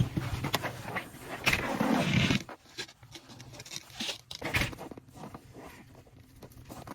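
Irregular footsteps with scraping and rustling, as a person walks out carrying and unrolling an extension cord. The loudest rustling comes about two seconds in and again about four seconds in.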